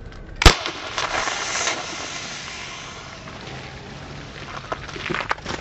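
One sharp shot from a Dan Wesson 715 CO2 pellet revolver hitting a cola can about half a second in, followed by the hiss of carbonated soda spraying from the punctured can, fading over a second or two. A few faint ticks follow near the end.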